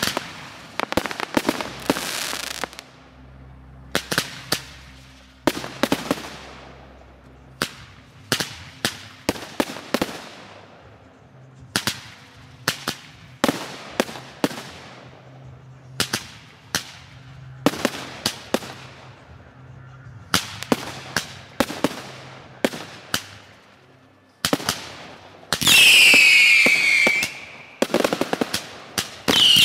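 Fireworks display: a steady run of sharp bangs from rockets and shells bursting, roughly one or two a second, each trailing off in a short echo. Near the end come two loud whistles, each falling in pitch, from whistling fireworks.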